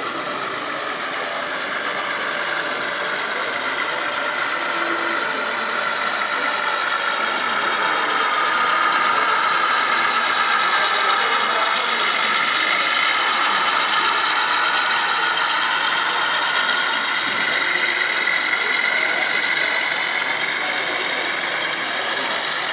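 Model freight train running past on layout track, its diesel locomotives' motors and gears whining steadily with the wheels rolling on the rails. It grows louder toward the middle as the locomotives pass close by.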